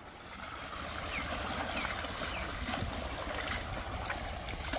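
Steady rushing of running water, with a few short high chirps over it.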